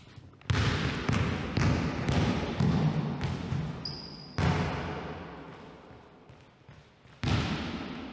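Basketball dribbled on a wooden gym floor, each bounce a sharp knock with a long hall echo, about two a second for the first three seconds, then two more single bounces spaced a few seconds apart. A brief high squeak comes just before the middle bounce.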